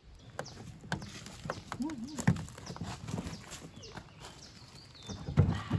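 Durian husk being levered open with a knife and pulled apart by hand: a series of irregular sharp cracks and knocks as the spiky shell splits along its seams, the loudest crack near the end.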